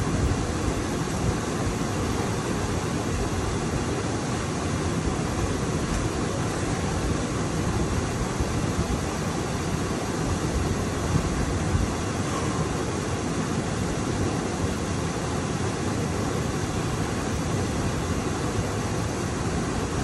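Steady rushing of a waterfall and stream flowing over rocks.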